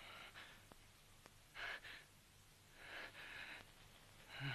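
Two faint breaths, a short one near two seconds in and a longer one around three seconds, over a low steady hum.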